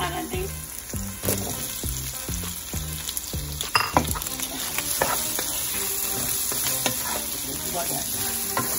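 Oil sizzling steadily in a nonstick frying pan with onions and tempering spices. A little before four seconds in, chunks of raw green papaya drop into the pan, and a wooden spatula then stirs them with light scrapes and taps over the frying hiss. Faint background music with low notes plays under the first half.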